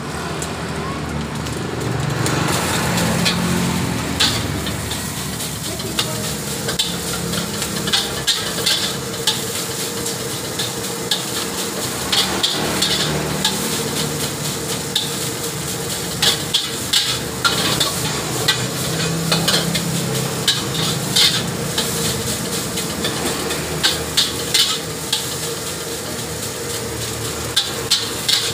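Egg and rice sizzling in a hot steel wok for nasi goreng. A metal wok spatula scrapes and knocks against the wok many times as the food is stir-fried.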